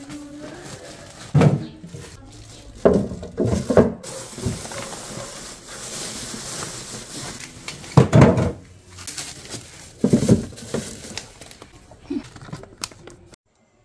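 Plastic produce bags rustling, with knocks and clatters as bagged vegetables and a plastic tomato container are packed onto fridge shelves and into the crisper drawer. The loudest knocks come about eight seconds in, and the sound cuts off suddenly near the end.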